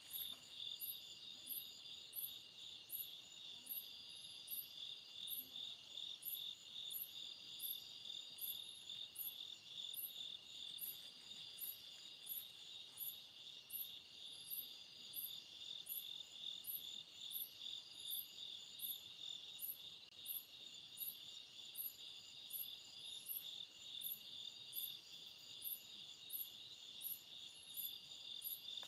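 Night chorus of crickets and other insects: a steady, fast-pulsing trill, with a sharp high ticking about twice a second over it.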